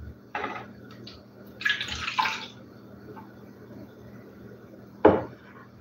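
Milk poured from a measuring jug into a glass mixing bowl, a splashing pour lasting about a second. A single sharp knock comes near the end.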